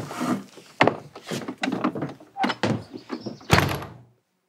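A cabin's wooden front door and footsteps as people come in: a run of knocks and thuds, the heaviest about three and a half seconds in, after which the sound cuts off suddenly.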